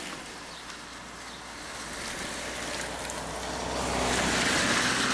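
A car driving past close by on a wet road: the hiss of its tyres on the wet surface swells to a peak near the end, over a low engine hum.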